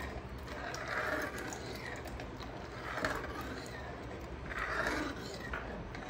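Metal ladle stirring and scraping around a metal kadai of simmering tamarind kulambu, a swell of scraping about every two seconds, as a wheat-flour slurry is stirred in to thicken it.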